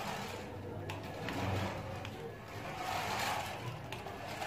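Toy remote-control car's small electric motor and gears whirring as it drives over a concrete floor, swelling and easing as it speeds up and slows.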